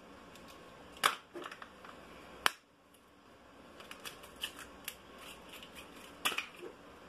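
Raw eggs being cracked by hand, shell knocked against shell: sharp cracking clicks about a second in, at two and a half seconds and near the end, with lighter taps between.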